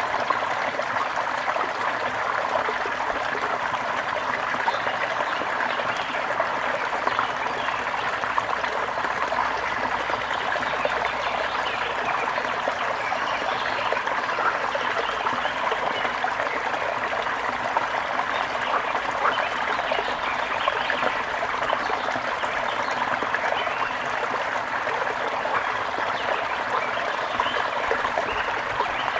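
Small brook trickling and babbling over stones, a steady unbroken rush of running water.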